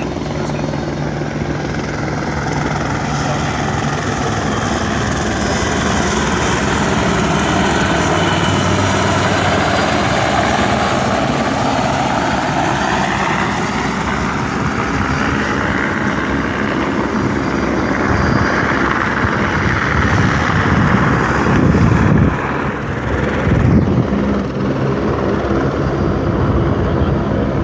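Helicopter engine and rotor running on the ground, a loud steady whine and rotor noise with slowly sweeping tones, swelling a little about two-thirds of the way through.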